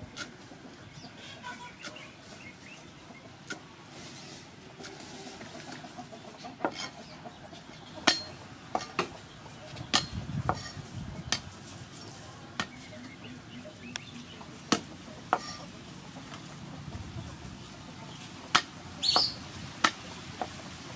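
Cleaver chopping herbs on a thick wooden chopping board: irregular sharp knocks of the blade hitting the wood. A short bird call comes near the end.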